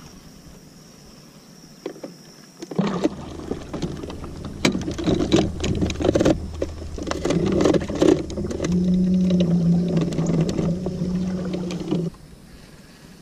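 Transom-mounted Minn Kota electric trolling motor switching on about three seconds in and running with a steady low hum, then cutting off abruptly near the end. Clunks and knocks sound throughout as its shaft and mount are gripped and turned by hand.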